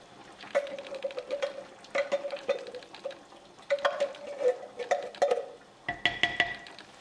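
A tin can knocked again and again against the rim of a cooking pot to shake out the last corn kernels, each knock followed by a brief metallic ring. About six seconds in comes one louder knock with a higher ringing note.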